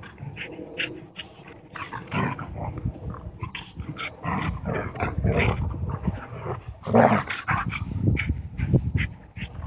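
Dogs play-fighting, with irregular growls and snarls over scuffling on grass. The loudest burst comes about two-thirds of the way through.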